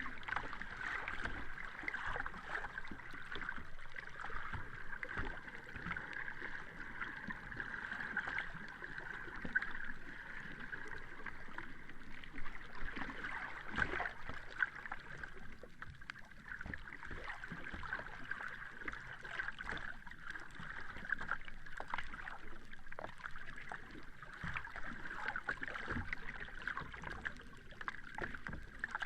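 Sea water lapping and gurgling steadily, full of small splashes and trickles, with a few sharper splashes about halfway through.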